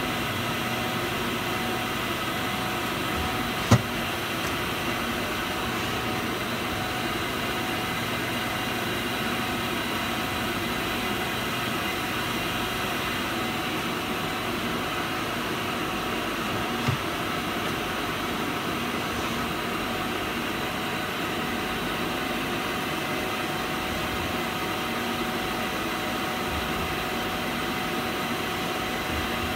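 Nakamura-Tome TW 20 CNC turning lathe running with a steady machine hum made of several steady tones. A sharp knock comes about four seconds in, and a lighter one about halfway through.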